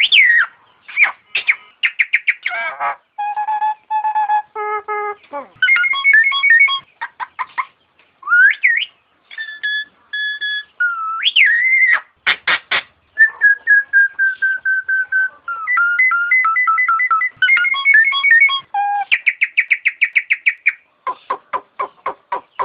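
Nias hill myna calling: a varied stream of loud whistles, sweeping up and down glides and fast runs of short clipped notes, with one long held whistle about midway.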